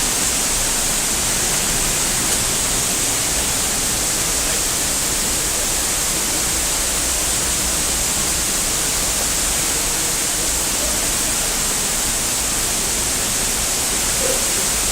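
Steady rushing of waterfalls and cascading water in a rock gorge.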